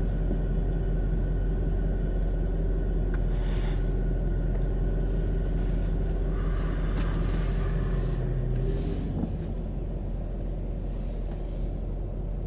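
Vehicle engine idling with a steady low hum. About nine seconds in, its pitch dips slightly and it settles a little quieter.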